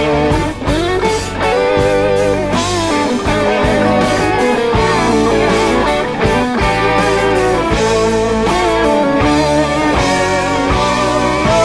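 Background rock music with guitar over a steady bass line.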